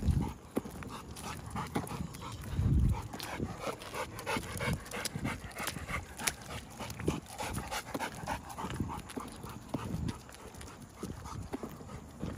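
Pit bull dogs panting as they move about, with scattered light clicks of steps on wet pavement and a brief low rumble about three seconds in.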